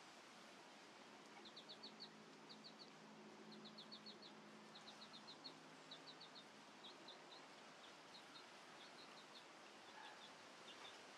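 Faint background of a bird chirping: short high notes in quick runs of three to five, repeating about once a second.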